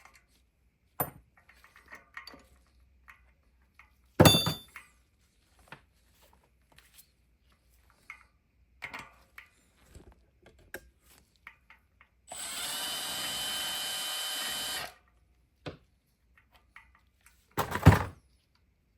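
Handheld power drill running steadily for about two and a half seconds in the second half, with scattered clicks and two loud clunks of metal handling, one early and one near the end.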